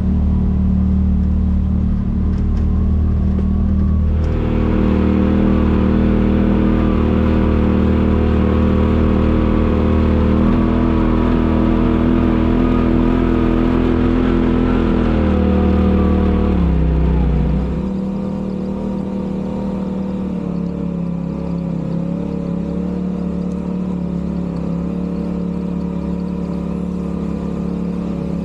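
Polaris RZR side-by-side engine running on the trail: it picks up about four seconds in and holds a steady pull, then the pitch and level drop at about seventeen seconds as the throttle eases, and it runs lower and steadier after that.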